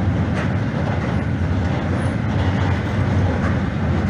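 Freight train of large cylindrical tank wagons rolling past close by: a steady, deep rumble of wheels on rail, with a few faint clicks.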